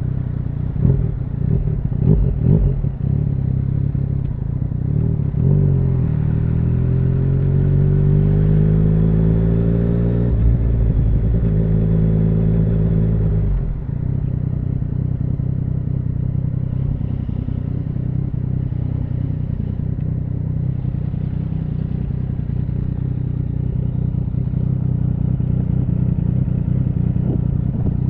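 2017 Yamaha MT-09's three-cylinder engine through an Akrapovic full exhaust: it runs unevenly at low revs, then pulls away with rising revs, and there is a gear change about ten seconds in. About halfway through it comes off the throttle and settles into a steady low rumble.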